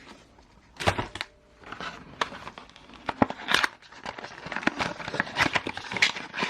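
Plastic packaging crinkling and rustling as parts are handled and unwrapped, with irregular clicks and short rustles that grow busier toward the end.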